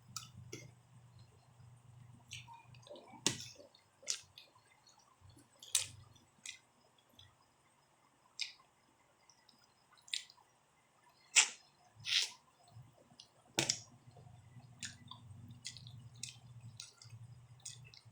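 Eating noises: scattered sharp clicks and wet smacks of chewing and handling food, irregular and of varying loudness, over a faint low hum that comes and goes.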